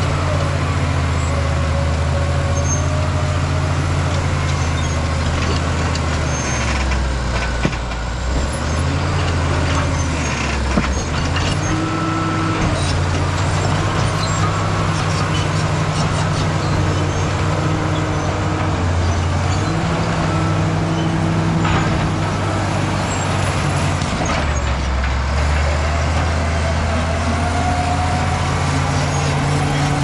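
Caterpillar D7G crawler bulldozer's diesel engine running hard under load while pushing rock, its note sagging twice around the middle as it lugs and then picking back up. A few sharp clanks of rock and steel tracks are mixed in.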